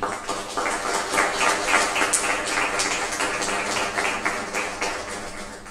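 Audience applauding: a burst of clapping that starts at once and dies away near the end.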